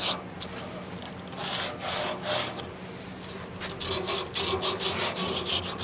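Sandpaper rubbed by hand over a freshly painted metal panel in repeated quick, uneven strokes.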